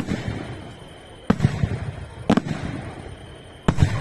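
Aerial firework shells bursting in a string of sharp bangs: one at the start, two more about a second apart in the middle, and a quick double bang near the end. A low rolling echo runs between them.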